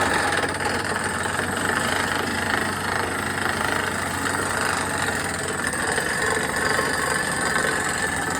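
Borewell drilling rig running steadily at work: a constant, loud machine racket with a dense rattling texture and no pauses.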